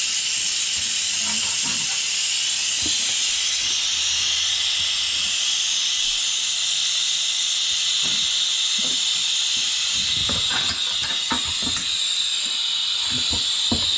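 A steady high hiss runs throughout. From about eight seconds in there are short knocks and clicks as steel tyre levers work the bead of a motorcycle tyre over the rim.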